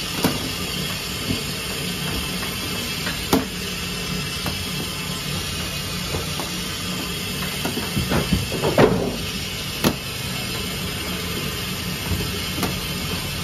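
Metal bench scraper knocking on a steel worktable as it chops a rope of dough into pieces: single sharp knocks a few seconds apart, with a louder cluster of knocks about nine seconds in, over a steady machine hum.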